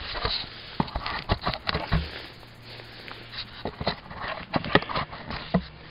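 Handling noise from a trail camera being set up, right against its microphone: an irregular run of clicks, knocks and rustles as hands grip and adjust it.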